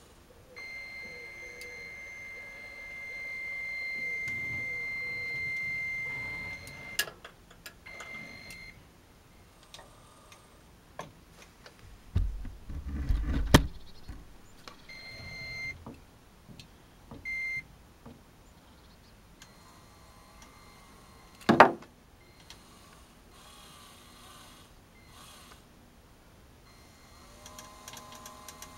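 Electric motors of a radio-controlled Tonka Cranemaster toy crane running in bursts. A high steady whine runs through the first quarter over a gear rumble, and shorter bursts of the whine come later. There are several clunks and knocks, the loudest a sharp knock about three-quarters of the way through.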